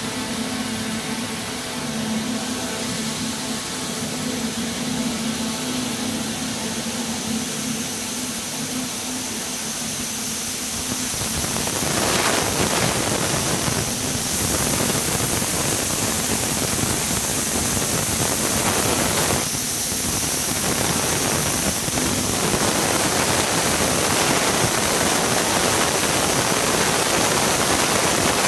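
Rows of high-speed spandex yarn covering machines running together: a steady air-jet hiss over a low machine hum. The hiss grows louder about twelve seconds in and then holds.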